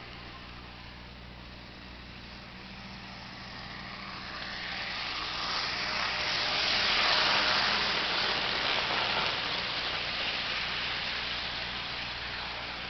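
HO-scale model train, a Mehano SD40-2 diesel locomotive pulling a string of cars, running on sectional track: a steady rushing rumble of wheels on rails over the locomotive's motor hum. It swells to its loudest about seven seconds in as the train passes close, then slowly fades.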